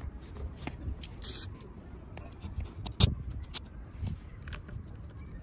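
Scattered clicks and light metal knocks from engine parts being handled, with one sharper knock about three seconds in, over a low outdoor rumble.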